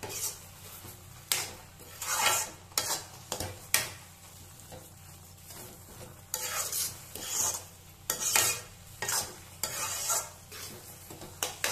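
A steel spoon stirring and scraping thick tomato paste around a steel kadai, mixing in spice powders, in repeated irregular strokes with the odd sharp clink of metal on metal.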